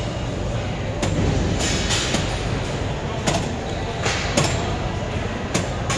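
Hip abduction machine in use during a set: a steady rumble with sharp clacks at irregular moments, about seven in all, as the weight stack and pivot arms move.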